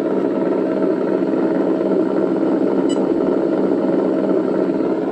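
Simulated engine idle played through the small onboard speaker of a Sense ESS-ONE sound module in an RC truck, running steadily without shutting itself off.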